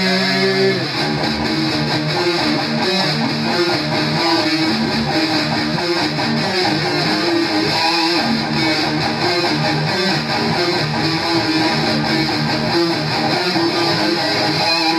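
Two electric guitars played loud through amplifiers in a live jam: a held chord for the first second, then steady rhythmic strummed playing.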